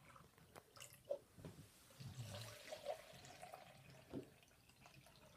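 Faint trickle of milk poured from a pitcher into cups, with a few small drips and clicks.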